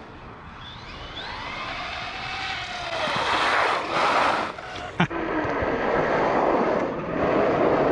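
Losi Lasernut RC truck being driven hard. Its electric motor and drivetrain whine rises and falls with the throttle, and a sharp knock about five seconds in suggests a landing or hit.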